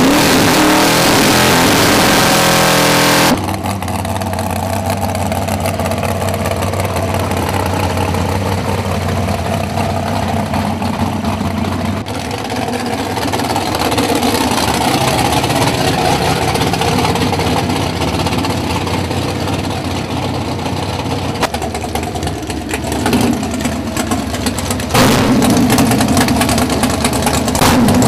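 Drag-racing car engines running, loud and rough at first, then cutting off suddenly about three seconds in to steadier engine running with revs rising and falling. The engines grow louder again near the end.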